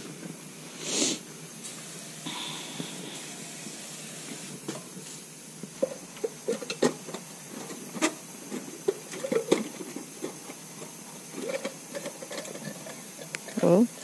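Scattered light knocks and clicks of hand work on a skid steer's fuel filter housing, over a steady faint hiss, with a brief rush of noise about a second in.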